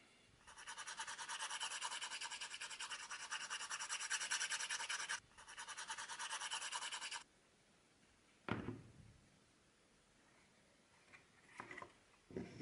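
Fast back-and-forth hand-sanding strokes on a small thin wooden panel: a dense scratchy hiss that stops briefly about five seconds in, then runs on to about seven seconds. After that comes a single wooden knock, and a few lighter knocks near the end as the pieces are handled.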